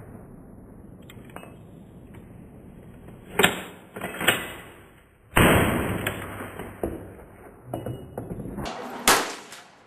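Sharp metallic clacks of a Yugoslav M48 Mauser bolt-action rifle being handled and its bolt worked between shots, the loudest about three and a half and four and a half seconds in. A louder bang with a long fading tail comes about five seconds in, and a few lighter clacks follow near the end.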